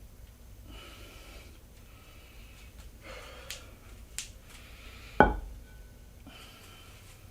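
A person breathing hard in several spells, with two small clicks and one loud, sharp clank with a short ring about five seconds in.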